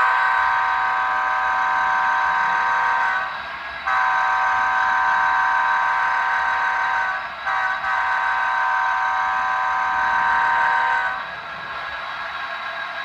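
Model locomotive's sound system playing a multi-tone train horn: two long blasts of about three seconds each, a quick short toot, then a third long blast.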